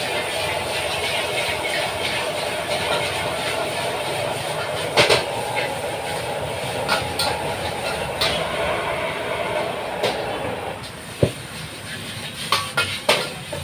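Steady rush of a high-pressure gas wok burner under a wok of stir-frying noodles, with the metal spatula clanking and scraping on the wok now and then. The rush drops off about eleven seconds in as the flame is turned down, leaving a few quicker spatula clacks near the end.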